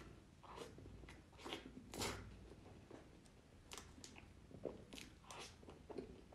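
Close-miked eating of soft cream cake from a spoon: wet mouth clicks and chewing in irregular short strokes, about one or two a second, the loudest about two seconds in.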